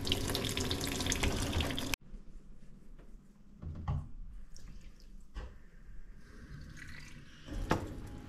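Running water splashing, cutting off abruptly about two seconds in, followed by light kitchen clatter with a couple of sharp knocks.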